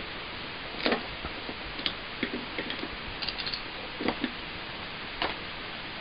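Hand ratchet wrench clicking in short, irregular bursts as a lug nut is run down on an ATV wheel.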